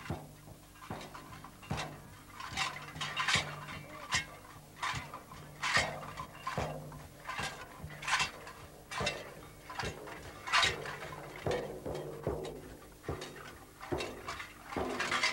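Shaman's frame drum beaten in a steady rhythm, a little more than one stroke a second, each beat with a metallic jangle of the shaman's metal jingles.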